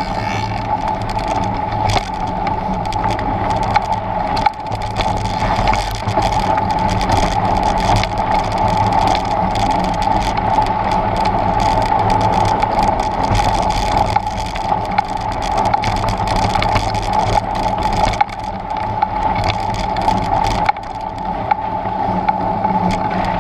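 Trek Stache 9 29+ mountain bike being ridden over a rough dirt trail: a steady rush of tyre and wind noise with a constant mid-pitched hum, broken by frequent small clicks and knocks of the bike over the ground.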